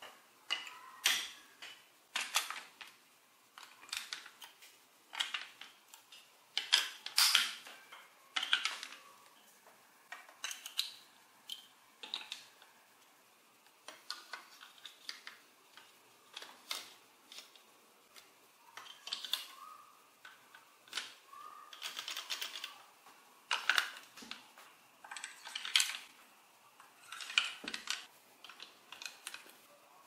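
Large plastic building blocks and toy gear parts clicking and snapping as they are pressed together and handled: irregular sharp clicks, one or a quick cluster every second or so.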